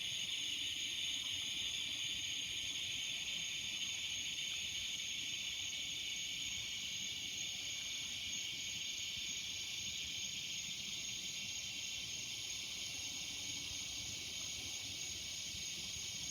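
Chorus of cicadas buzzing steadily: a continuous high-pitched hiss that eases slightly in loudness over the stretch.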